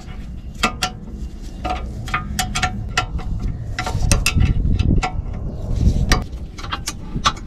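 A spanner tightening the upper caliper-to-carrier bolt of a rear disc brake caliper: a string of sharp, irregular metallic clicks with a brief ring after each, over a low rumble that swells in the middle.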